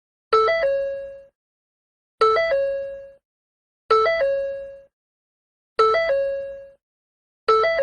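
Ford door chime repeating: each ring is a short three-note electronic figure whose last note rings out and fades within about a second. It sounds five times, roughly every 1.8 seconds.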